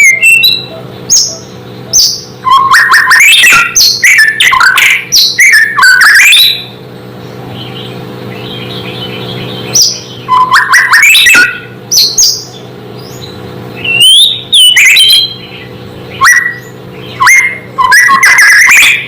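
White-rumped shama (murai batu) singing loud bursts of varied, fast whistled phrases with quick up-and-down sweeps, several phrases a few seconds apart and a pause of about three seconds near the middle. It is the bird's full territorial song, of the kind played to make other shamas answer aggressively. A faint steady hum runs underneath.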